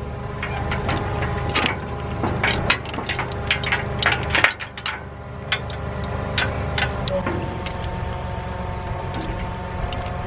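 Heavy steel tow chain clinking and clanking as it is handled and re-hooked, with the links knocking most often in the first half. A tractor engine idles steadily underneath.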